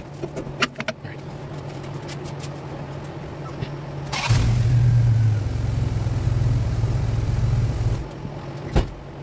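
A vehicle engine hums low and steady. About four seconds in it comes on much louder with a sudden rush, runs for about four seconds, then drops back. There are a few light metallic clicks at the start and one sharp click near the end.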